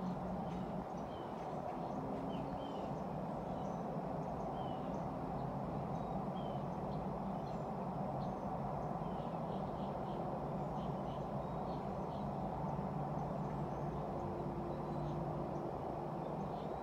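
Steady background rumble with faint, scattered bird chirps throughout.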